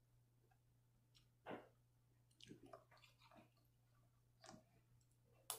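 Metal spoon clinking and scraping in a bowl of cereal and milk, with chewing: a few short, scattered clicks, a small cluster of them in the middle and a sharp clink near the end.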